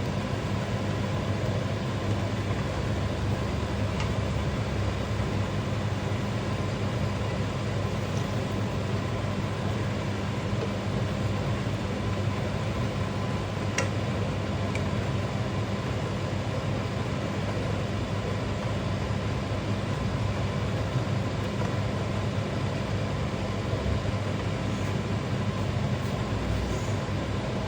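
Electric blender running steadily, grinding squid innards with spices into a black paste.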